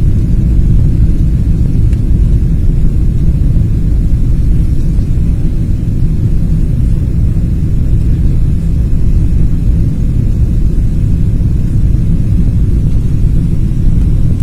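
Steady low rumble of an airliner's jet engines and rushing air, heard inside the passenger cabin on final approach just before touchdown.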